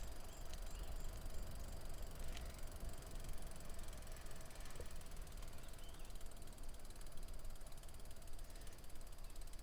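Recumbent trike's freewheel ticking as it rolls along, over a steady low rumble of tyres and wind.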